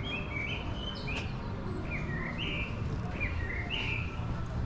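Birds chirping: a string of short, quick notes, some sliding up or down in pitch, over a steady low rumble of background noise.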